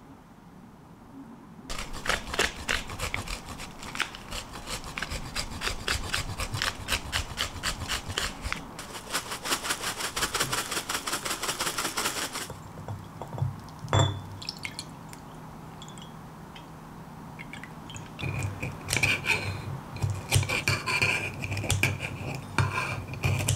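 Fast, steady dry rasping for about ten seconds as a topping is ground or rubbed over a tortilla pizza. A sharp click follows, and near the end kitchen scissors snip and crunch through the crisp tortilla base.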